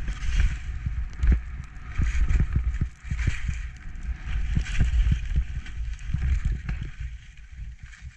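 Skis turning through soft powder snow, each turn a swish that swells and fades about every second and a half, over a low wind rumble and knocks on the microphone.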